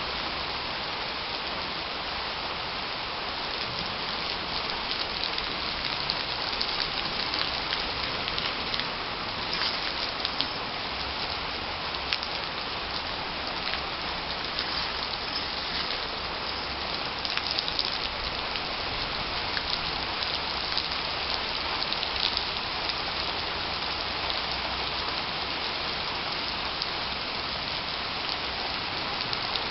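Heavy summer-storm rain falling steadily on garden foliage and the ground, a dense hiss with many close drops pattering on top.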